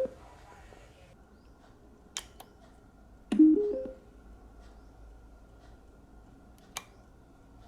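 A speaker's power-on beep: a short rising run of four stepped tones about three and a half seconds in. Sharp clicks sound about two seconds in and near the end.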